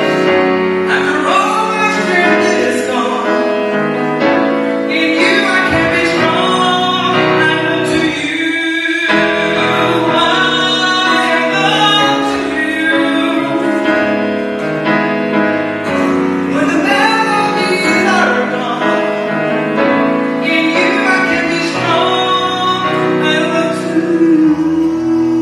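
A man singing a slow song while accompanying himself on a grand piano, holding a long note near the end.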